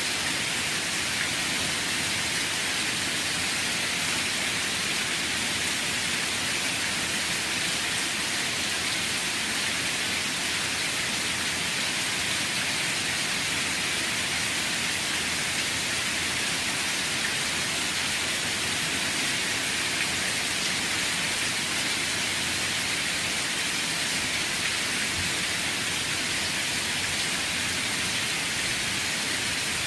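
Steady rainfall, an even hiss of drops falling without letup.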